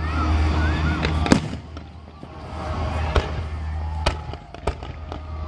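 Aerial fireworks bursting: deep rumbling booms in the first second and a half, then a string of sharp, echoing cracks.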